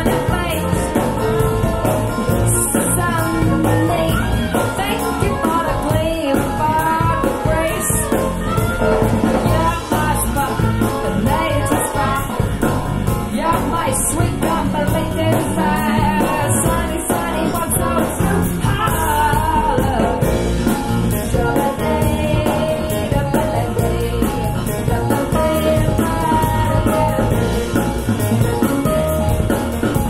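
A live band recording with a singer, guitar, bass and drums, played back through a hi-fi system as a sound demo.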